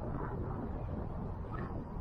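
Wind rumbling steadily on the microphone of a head-mounted camera, with a few faint, short, high chirps late on.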